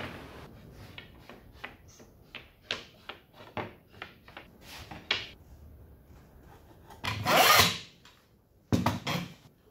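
Plywood strips clicking, knocking and sliding against each other as they are handled on a workbench, then a loud wooden scrape lasting under a second about seven seconds in.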